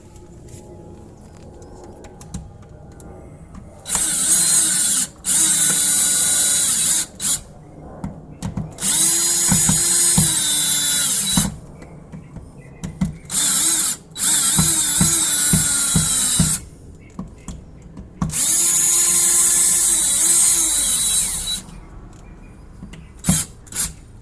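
Power drill run in about six bursts of one to three seconds, its motor winding up, holding speed and winding down with each pull of the trigger, with a few short blips between. It is driving in the screws that hold the outlets in the electrical box.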